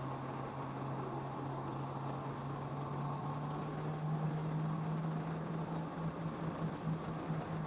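Kawasaki motorcycle engine running while riding, its steady note stepping up in pitch about three to four seconds in as it speeds up, over a haze of wind and road noise.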